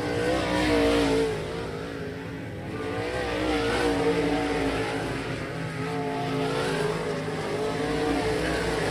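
Several dirt-track modified race cars' V8 engines running hard around the oval, the pitch rising and falling as they get on and off the throttle through the turn and come past close by. Several engines are heard at once.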